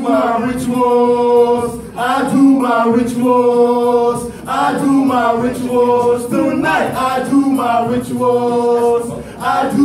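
Male voices singing a cappella into microphones, with no backing beat. The held notes bend at the ends and form a phrase that repeats about every two seconds.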